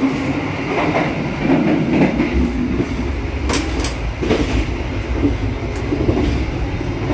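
Running noise of the moving Argo Cheribon passenger train heard from inside a carriage vestibule: a steady low rumble with rattling from the car. A few sharp clicks or knocks come in the middle.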